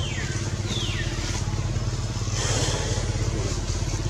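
An engine running steadily with a low rumble. In the first second, two short high calls slide down in pitch.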